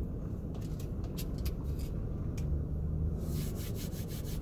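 A few faint slurps through a straw early on, then hands rubbing together briskly from about three seconds in, a quick even run of swishes at roughly seven strokes a second. A low steady hum of the car interior sits under it all.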